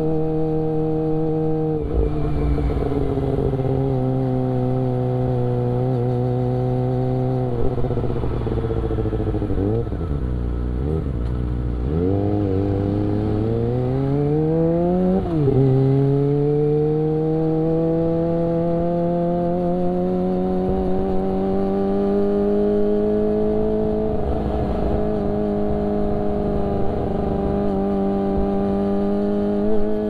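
Kawasaki Ninja ZX-25R's inline-four engine through an Akrapovic exhaust, under way. Steady revs at first; near the middle the revs dip and jump a few times, then rise quickly and drop sharply at an upshift, and through the second half they climb slowly and steadily as the bike accelerates.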